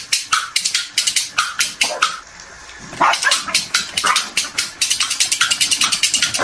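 Corgi barking rapidly in a long string of short, sharp, high yaps, several a second, with a brief break a little over two seconds in.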